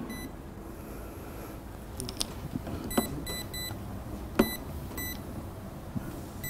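Treadmill control-console keypad beeping as its buttons are pressed: about five short electronic beeps from about three seconds in, with a couple of light clicks just before.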